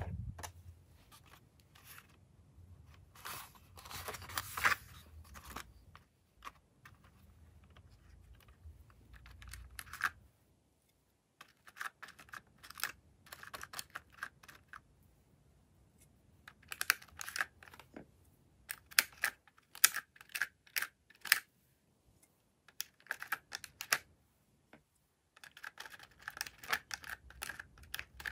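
Plastic handling noise as a toy makeup compact is picked up, then irregular clusters of small clicks and scrapes as a plastic spatula digs pressed glitter eyeshadow out of its plastic wells and taps it off.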